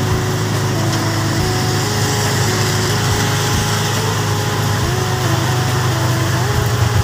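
Heavy rain pouring down on a paved road, a steady hiss, mixed with the engines of motorcycle tricycles and cars driving through the downpour.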